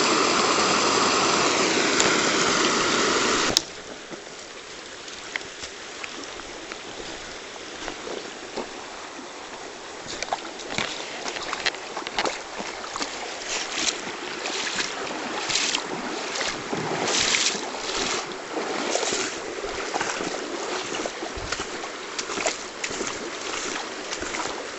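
Loud steady rush of water over a small river weir, cutting off suddenly a few seconds in. Then a much quieter stream flow, with irregular short rustles and crunches from about a third of the way through.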